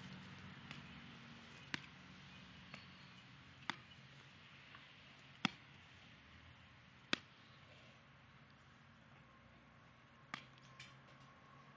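Yellow plastic toy tennis racket hitting a ball: sharp, separate hits about one to two seconds apart, the loudest about five and seven seconds in.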